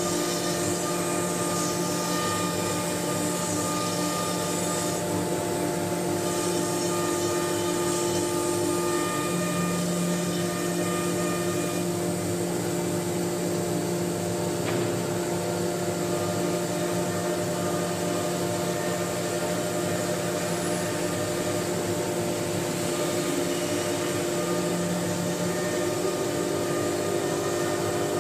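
CNC router spindle running steadily while its bit carves a groove in a wood board: a constant whine of several steady tones over a hiss of cutting, shifting slightly in pitch a few times as the cut changes.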